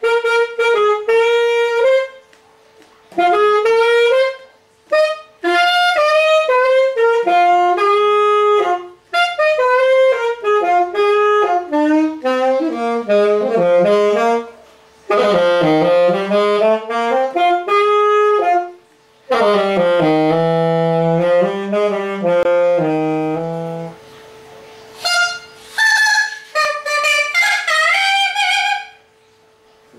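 Yamaha YAS-280 alto saxophone played in melodic phrases with short pauses between them, dropping into its low register about two-thirds of the way through.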